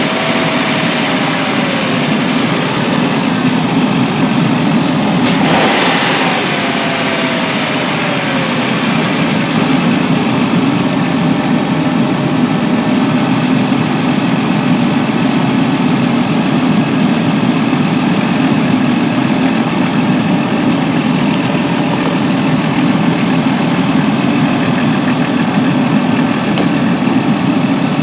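Dodge Grand Caravan's 3.8-litre V6 idling steadily. About five seconds in there is a click, followed by a short falling tone.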